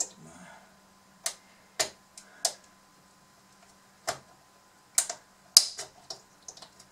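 Irregular sharp clicks and taps of a screwdriver working against the hard plastic body shell of a Bruder CAT D11 toy bulldozer, about a dozen over several seconds, the loudest a little past halfway, as it probes for an edge to pry the shell's snap-in clips.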